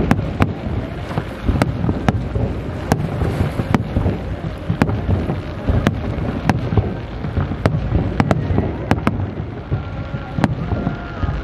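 Fireworks display going off in rapid succession: a continuous rumble of low booms with sharp cracks of bursting shells at irregular intervals.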